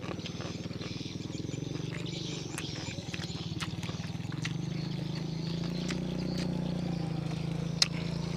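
A small engine running steadily with a low, pulsing drone that grows a little louder about halfway through, with light clicking sounds of eating on top and one sharp click near the end.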